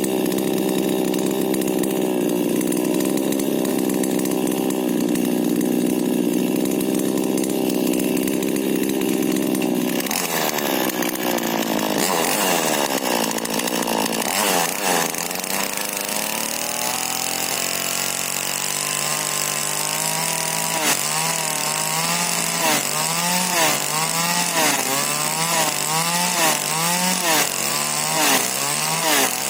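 Husqvarna 40cc two-stroke chainsaw with a modified exhaust running at a steady high speed, then dropping off about ten seconds in. From about twenty seconds in, its engine speed rises and falls in a regular surge a little more than once a second.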